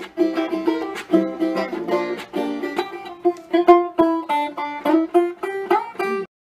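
Intro theme music played on plucked string instruments, a quick run of picked notes, that cuts off abruptly near the end.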